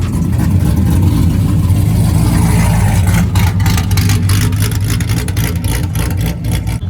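A car engine running loud and low, fairly steady in pitch, with many short sharp clicks or pops over it in the second half.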